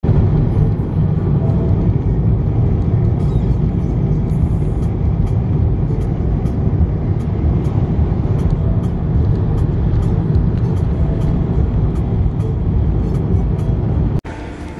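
Steady low rumble of a road vehicle driving along, heard from on board, the road and engine noise running evenly until it cuts off suddenly near the end.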